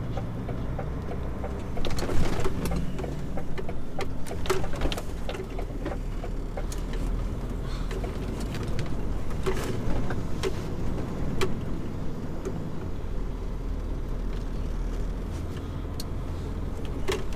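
HGV diesel engine running at low speed as the lorry creeps forward, heard from inside the cab, with scattered clicks and knocks over the steady low rumble.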